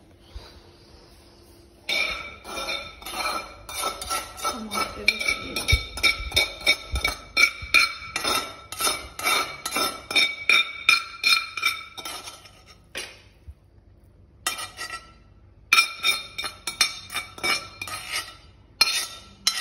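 A metal fork repeatedly knocking and scraping against a metal cooking pot as cooked noodles are scooped out, each strike ringing. The clinks come about three or four a second, stop for a couple of seconds, then start again.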